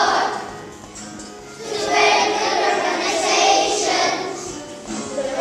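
A group of children singing together to music. The singing breaks off briefly about a second in, then the next line follows.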